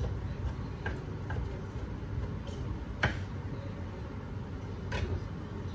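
A kitchen knife knocking a few times on a cutting board as scallops are cut smaller, the sharpest knock about three seconds in, over a steady low hum.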